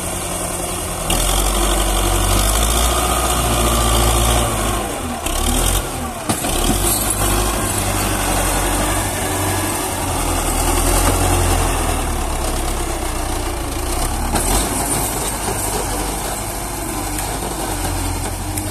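Belarus tractor's diesel engine running, its revs rising and falling, loudest for a few seconds after about a second in and again around the middle.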